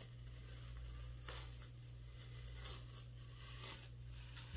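Green painter's tape (FrogTape) being peeled off a painted board, giving faint, intermittent ripping. A steady low hum runs underneath.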